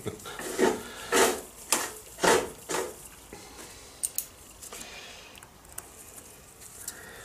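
Five short scraping strokes, about two a second, then a few light clicks and rustling as small metal parts are handled.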